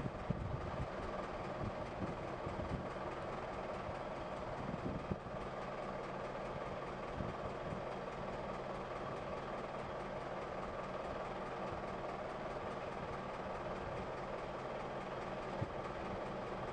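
Steady drone of heavy construction machinery engines running.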